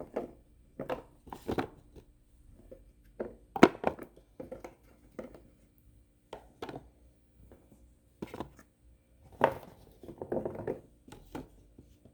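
Fingerling potatoes being put by hand into a container on a kitchen scale: irregular knocks and clunks, the loudest about three and a half seconds in.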